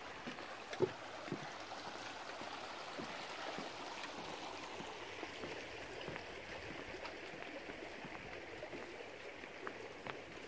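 Steady rushing of a creek running full after a couple of days of rain, with a few light knocks near the start.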